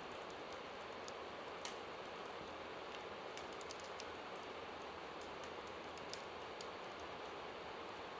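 A creek running steadily, with a fire crackling over it in small, irregular pops and ticks.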